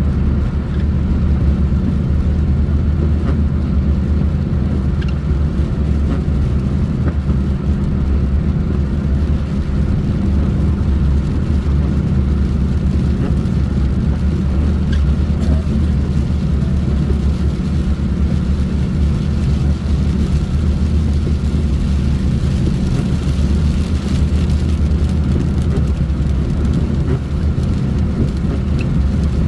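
Car driving at a steady pace, its engine drone and road rumble running evenly and low in pitch, with no change in speed.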